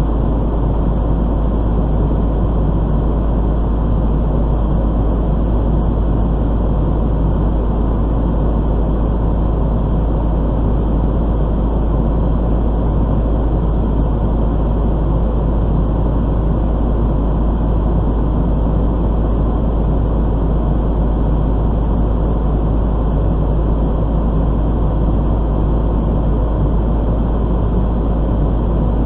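Fire engine's diesel engine running steadily, heard from inside the cab, with its pump driving the charged hose line. It is a loud, even rumble that does not change.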